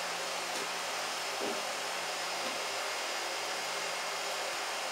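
Steady, even hiss with almost no low rumble, cutting in and out abruptly.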